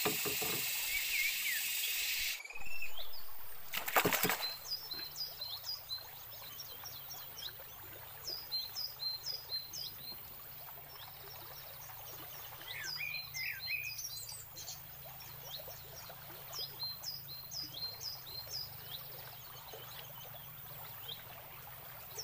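Wild birds singing in a swamp forest: runs of short, high, down-slurred chirps repeating every fraction of a second, with a lower call near the middle. A single sharp knock about four seconds in.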